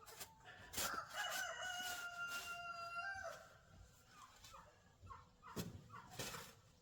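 A rooster crowing once, ending in a long held note about three seconds in, followed by shorter clucking calls. A few sharp knocks sound through it.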